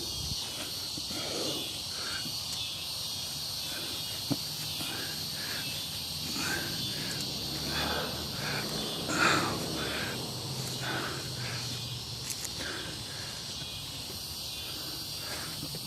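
Evening insects, crickets and the like, chirring steadily in a high, even drone, with a brief louder rustle about nine seconds in.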